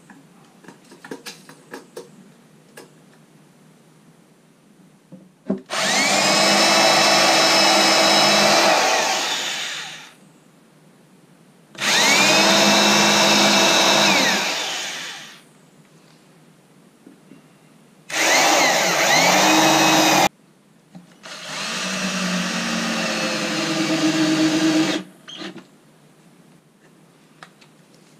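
Cordless drill run in four bursts of a few seconds each, spinning up and winding down every time, boring into old pine boards. Light taps and clicks of handling come in the first few seconds.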